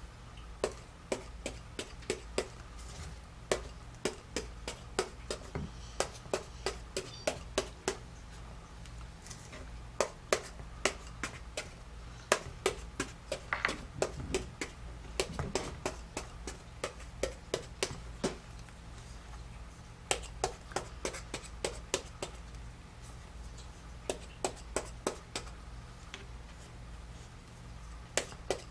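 Sharp knocks and clicks of kitchen work, irregular, a few a second, over a steady low hum.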